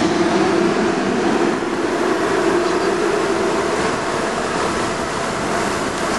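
Steady driving noise heard from inside a Land Rover Discovery rolling slowly alongside the Channel Tunnel shuttle's car-carrying wagons. A low hum fades out about halfway through.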